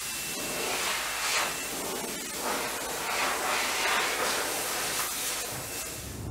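Compressed-air paint spray gun hissing as it sprays paint, the hiss swelling and easing several times with the passes.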